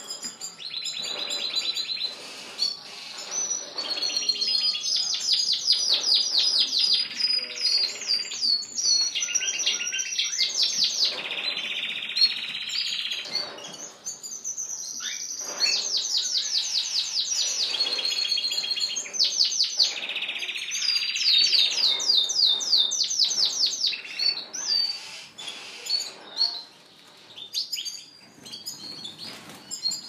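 Caged domestic canaries singing: long, fast trills of rapidly repeated high notes, with a short break about halfway through, and quieter, more scattered notes near the end.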